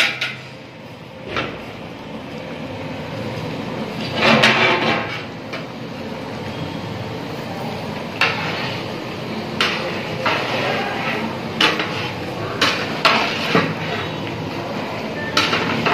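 Long metal spatula scraping and clinking against the inside of a large aluminium cooking pot as it stirs a thick mass of fried bread in sugar syrup and ghee. The strokes come irregularly, with a longer scraping stretch about four seconds in, over a steady rushing background noise.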